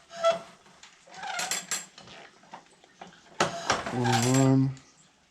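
Metal clicks, clinks and a short metallic ring from a hand-operated bandsaw blade tooth setter as the steel blade is advanced and a tooth is set.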